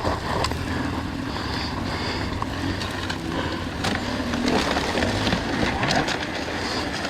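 Dirt bike engine running steadily at low revs, with scattered small ticks.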